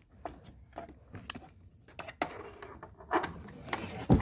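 Light plastic taps and knocks as a toy figure is handled and set down on a plastic Peppa Pig playhouse, with a louder thump near the end.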